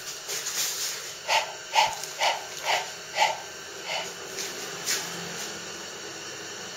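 A small dog giving a run of short, sharp barks, about two a second, then two more spaced out.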